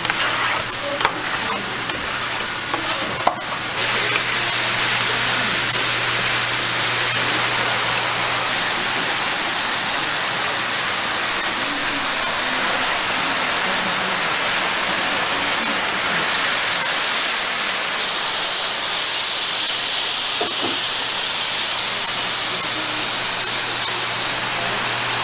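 Liquid ladled onto a hot steel flat-top griddle of browned meat rolls, sizzling into steam with a loud, steady hiss. The hiss starts about four seconds in, after a few light clicks.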